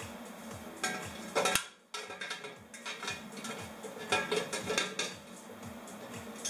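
Metal exhaust pipe bends clinking, knocking and scraping as they are handled and slotted together, with sharp clanks about a second and a half in and again around four to five seconds in.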